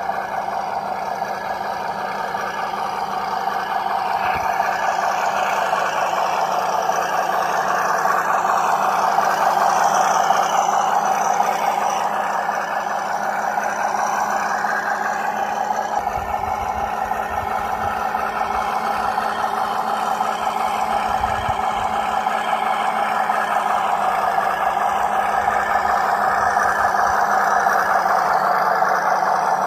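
Drivetrain of a WPL B36 Ural radio-controlled 6x6 truck running steadily as it crawls with a trailer in tow: a steady mechanical whine from its small electric motor and gearbox. A few low bumps come about halfway through.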